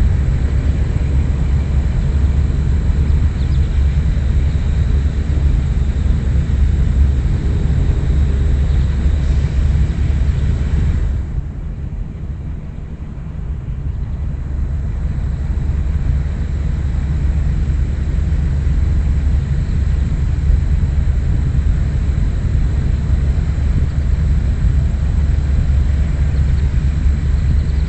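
Steady low rumble of wind buffeting the microphone in an open field, easing for a few seconds about eleven seconds in.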